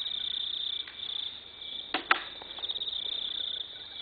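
Crickets chirping in a steady, high, pulsing trill, with two sharp clicks close together about two seconds in.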